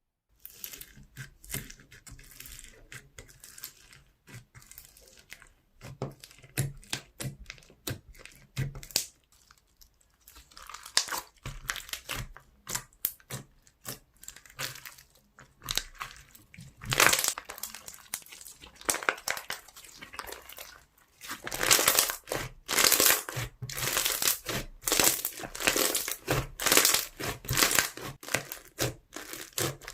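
Foam slime being squished and stretched by hand, making dense crackling and crunching clicks. It grows louder about 17 seconds in and stays busy from about 21 seconds on.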